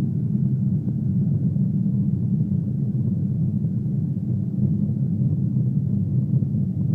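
Boeing 777 jet engines producing a steady, even low rumble.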